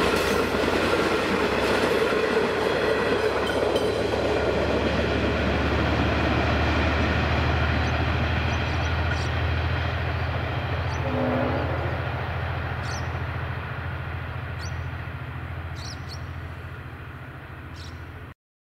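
V/Line passenger train rolling past over a level crossing, its carriages clattering by on the rails and the noise slowly fading as the train pulls away, over a steady low hum. A brief pitched tone sounds about eleven seconds in, and the sound cuts off abruptly near the end.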